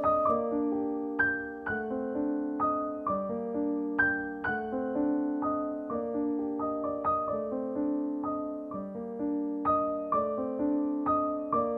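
Piano background music: a gentle melody of struck notes, each left to ring and fade, over soft sustained chords.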